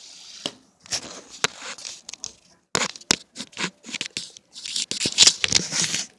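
Irregular crinkling and rustling noises in short, uneven bursts with sharp clicks, like something being handled close to the microphone.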